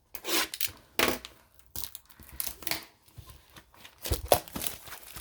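Crinkling and rustling of a trading-card hobby box and its plastic wrap being handled, in a series of short bursts, the loudest a little after four seconds in.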